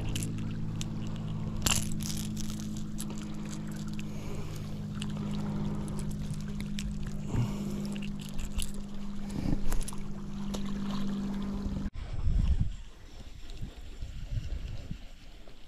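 A steady low motor hum made of several held tones, with small clicks as a treble-hooked lure is worked free of a small fish's mouth. The hum stops suddenly about three-quarters of the way through, leaving only quieter handling noise.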